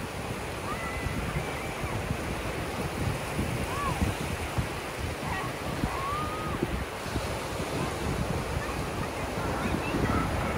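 Ocean surf washing on a beach, with wind buffeting the microphone in the low end. A few faint, short, arching calls sound over it now and then.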